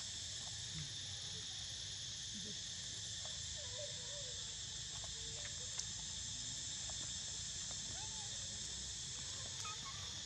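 Steady high-pitched drone of an insect chorus, with a few faint short squeaks lower down and a single sharp tick about six seconds in.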